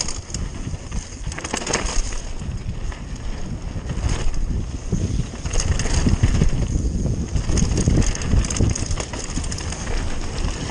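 Mountain bike descending a loose gravel trail at speed: tyres crunching over stones and wind buffeting the microphone, with sharper clatters from bumps about 2 and 4 seconds in.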